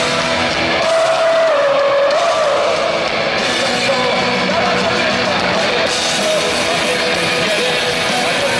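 Punk rock band playing live and loud, electric guitars to the fore.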